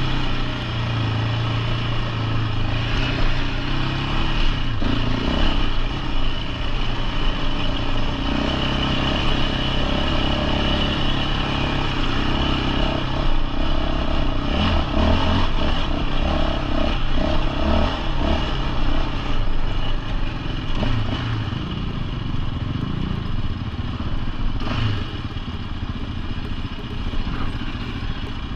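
A Yamaha sport quad's engine running as it is ridden up a rocky dirt trail, its revs rising and falling continuously.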